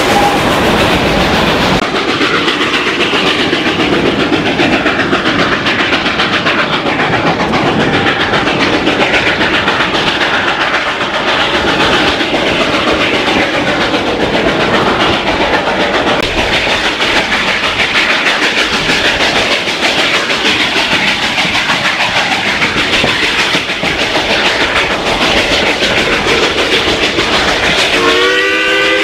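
Narrow-gauge passenger cars rolling over the rails, a steady clatter and rattle of wheels and car bodies. About a second before the end, the steam locomotive's whistle starts to blow: a chord of several tones that slides up slightly, then holds.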